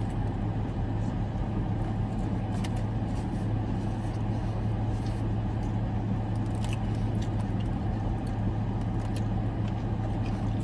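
Steady low hum of a parked Dodge Challenger idling, heard from inside the cabin, with a few faint clicks of chewing and biting into a sandwich.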